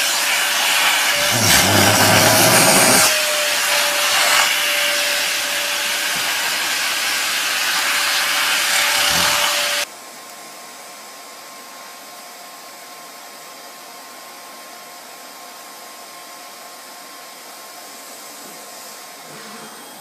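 A vacuum cleaner running loudly: a steady rushing noise with a constant whine through it. About halfway through, it cuts off suddenly to a much quieter steady hiss with a faint hum.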